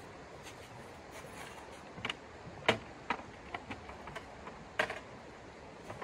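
Irregular clicks and light knocks of camping gear being handled and packed, about a dozen over a few seconds, with two louder clacks, over the steady rush of the creek.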